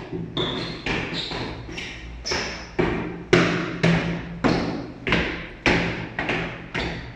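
Footsteps climbing a stairwell, about two steps a second, growing louder over the first few seconds as the walkers come up toward the listener.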